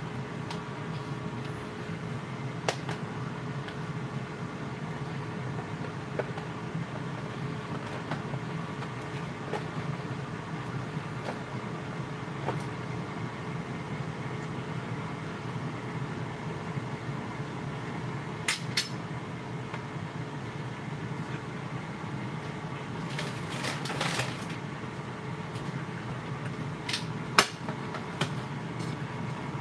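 Steady hum of an air fryer's fan running as it preheats. A few sharp clinks of a metal fork on a ceramic plate, the loudest near the end, and a short scrape a little after two-thirds of the way in.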